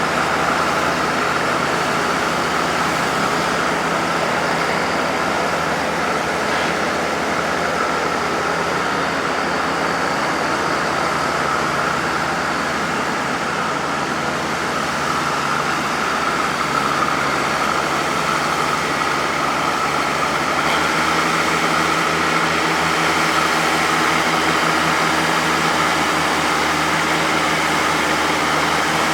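Oliver 88WT backhoe's engine running steadily. Its note shifts slightly about two-thirds of the way through.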